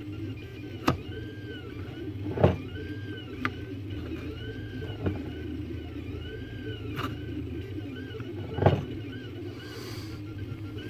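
Light knocks and clicks as a cylindrical magnet and a small iron-chain seesaw are handled on a workbench, over a steady low hum and a faint tone that rises and falls over and over.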